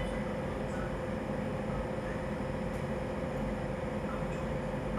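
Steady low rumble with a constant mid-pitched hum, like a running vehicle or machine.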